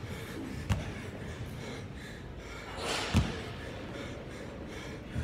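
Dumbbell thudding down on the gym floor twice, about two and a half seconds apart, between reps of single-arm dumbbell snatches. A short forceful exhale comes just before the second thud.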